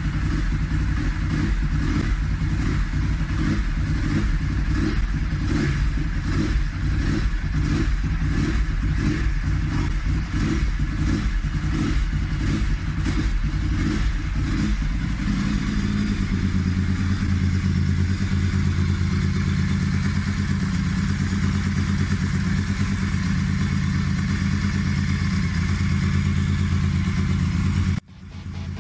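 Ducati 996's 90-degree V-twin running on its first start after a rebuild: for about the first half it runs with an uneven, pulsing beat, then settles into a steady, even idle. It cuts off abruptly near the end.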